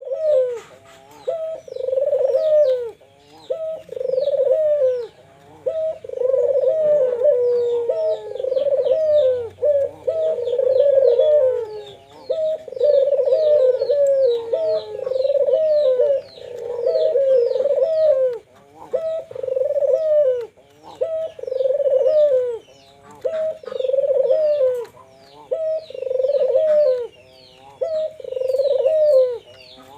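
Two ringneck doves (puter, one of them white) cooing over and over in phrases of a second or two with short gaps, their coos overlapping in places. High, quick chirps of a smaller bird run on above them.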